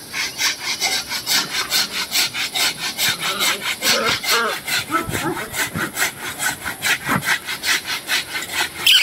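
Hand-held curved pruning saw cutting into a tree trunk, in steady back-and-forth strokes of about three a second.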